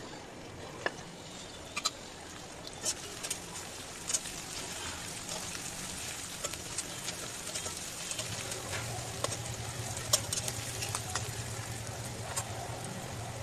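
Sliced onions and whole spices sizzling in oil in a metal karahi, stirred with a metal spatula that clicks and scrapes against the pan. A low steady hum joins about eight seconds in.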